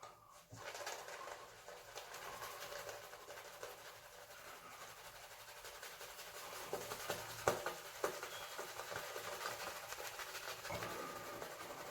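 Synthetic shaving brush whisking wet shaving-soap lather: a steady, fine crackling swish, with two sharper clicks about seven and a half seconds in.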